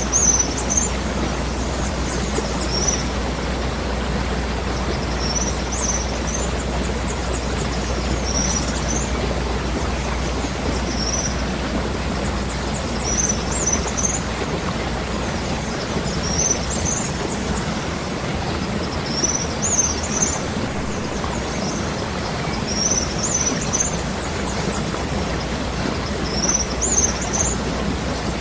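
Waterfall water falling and rushing steadily, with a bird giving short high chirps about every two and a half seconds.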